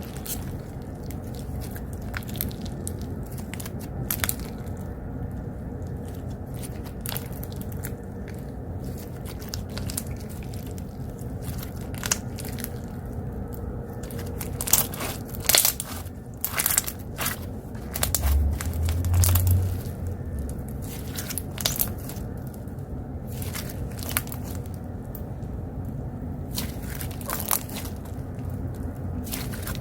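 Slime being pressed and stretched by hand, giving scattered crunchy crackles and sharp clicks that come thicker in the second half. A steady low background rumble runs underneath, noise coming in through an open window, with a brief louder low rumble a little past the middle.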